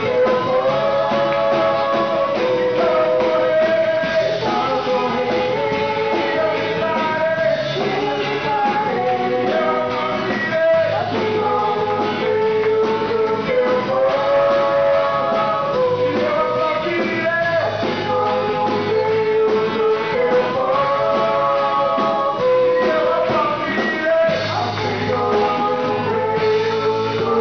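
Rock-style worship song: singing over a band with guitar, loud and continuous.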